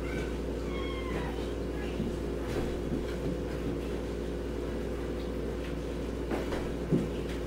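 House cats meowing: a few short, falling meows in the first second or so, fainter ones after, over a steady low hum. A single knock near the end.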